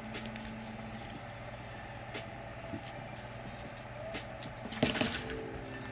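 Light clicks and clinks of a costume-jewelry necklace being handled, with a louder clattering rustle about five seconds in, over a steady low hum.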